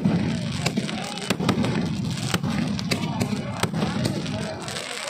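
Firecrackers going off in many sharp, irregular bangs, some in quick succession, over a background of people's voices.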